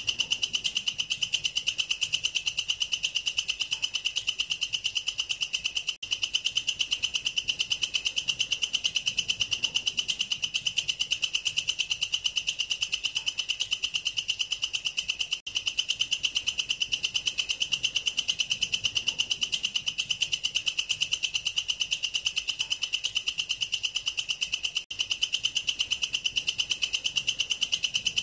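Katydid (walang kerik, a bush cricket of the family Tettigoniidae) stridulating without pause: a long, high-pitched creeeet made of rapid, evenly spaced pulses. The call breaks off for an instant three times.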